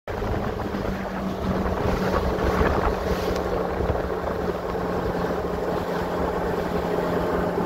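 Fishing boat's motor running at a steady cruising speed, a constant low hum, with wind buffeting the microphone and water rushing past the hull.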